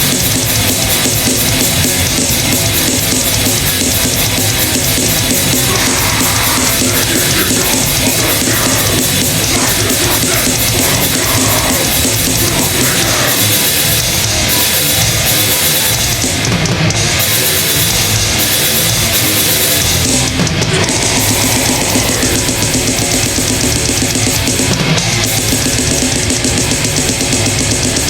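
Drum kit played along to a loud grindcore track: fast blast beats under distorted heavy-metal guitars, dense and unbroken.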